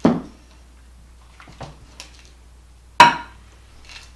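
A spatula knocking twice against a glass mixing bowl, about three seconds apart, each knock sharp with a short ring, with a few light clicks and scrapes between, while thick vanilla pudding is scooped out and spread on a cake.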